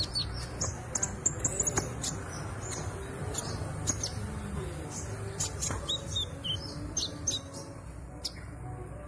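Konin ijoan cage bird making many short, high chirps and clicks in quick, irregular runs, as a young bird practising its calls, over a low background hum.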